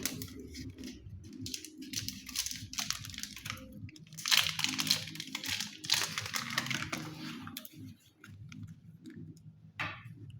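Crinkling and rustling of packaging being handled, in irregular bursts, over a low steady hum.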